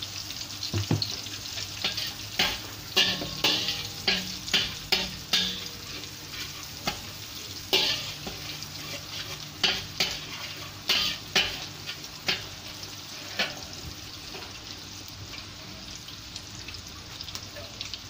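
Finely ground dried shrimp sizzling in hot oil in a wok, with a metal spatula scraping and knocking against the wok in quick strokes as it is stirred. The stirring stops about 14 seconds in and the frying sizzle carries on alone.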